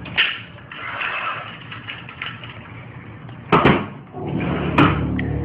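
Several sharp knocks of objects being handled on a desk: one just after the start, a double knock about three and a half seconds in, and another near the end. Soft background music comes back in about four seconds in.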